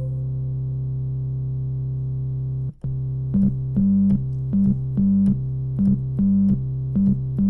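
Synthesizer music: a low note held steadily, a brief break about three seconds in, then a repeating keyboard figure with a higher note pulsing about twice a second.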